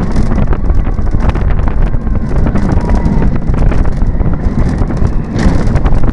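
Wind buffeting the microphone on board a moving roller coaster, over the steady rattle and clatter of the train's wheels on its steel track.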